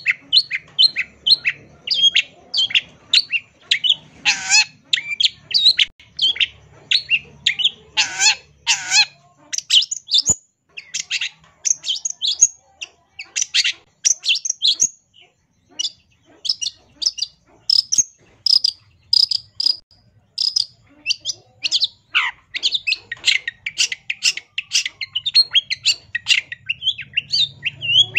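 Long-tailed shrike (cendet) singing a fast, chattering song of short high notes, several a second, made up of mimicked phrases of other birds. A few harsher, rasping notes come about four and eight seconds in.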